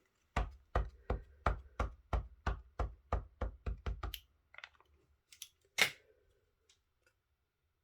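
Even, rapid tapping of an ink pad against a rubber stamp on a craft table, about a dozen taps at roughly three a second, then a few faint ticks and a single louder knock about six seconds in.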